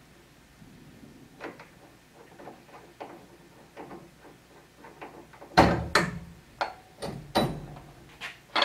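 Tubing cutter being turned by hand around a copper water pipe, giving scattered light clicks and ticks. In the second half come about seven louder sharp metallic knocks and clanks as the cut goes through and the tool is handled.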